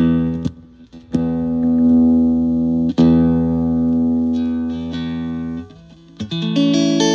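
Telecaster electric guitar played through a Fender Frontman PR-241 15-watt solid-state amp on the clean channel with the drive off: a few strummed chords left to ring, then quicker notes near the end. The amp is passing signal again after a repair for no output.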